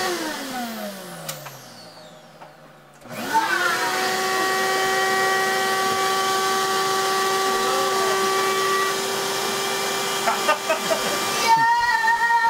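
Vacuum cleaner motor spinning down, then switched on again about three seconds in, winding up to a steady whine and running, powered from a new off-grid solar battery and inverter system.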